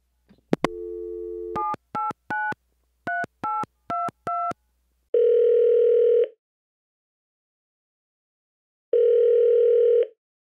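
Telephone line: a click as the receiver is picked up, about a second of dial tone, then seven touch-tone digits dialled in quick beeps. The ringing tone follows twice as the call goes through and rings at the other end.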